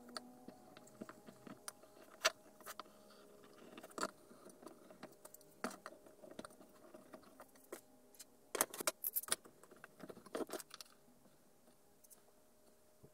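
Light clicks and knocks of wooden pieces and steel hand tools being picked up, set down and positioned on a wooden workbench, with a quick run of sharper clicks about two-thirds of the way through.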